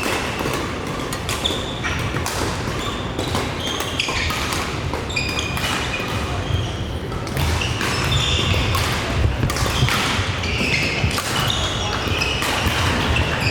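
Singles match play on an indoor court: repeated sharp hits mixed with short high squeaks of sports shoes on the floor, over a background of hall noise.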